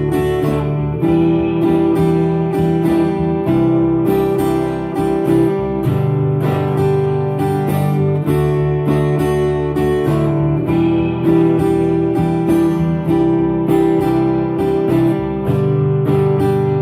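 Acoustic guitar strummed in a steady campfire rhythm, cycling through the chords Em7, Cadd2, G and D, with the chord changing about every two and a half seconds.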